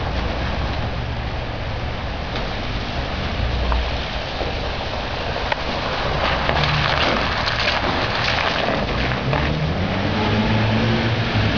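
Off-road vehicles driving past one after another over gravel and shallow icy water, engines running. Tyres crunch on stones and splash, loudest as a Toyota Land Cruiser passes close about six to nine seconds in. The next vehicle's engine rises in pitch near the end.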